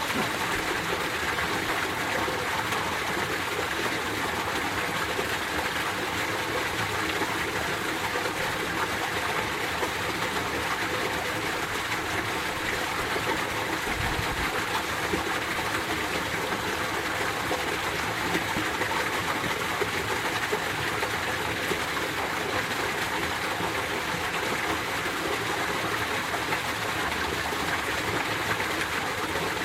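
Mountain stream in winter running over rocks: a steady, even rush of flowing water, with one brief low thump about halfway through.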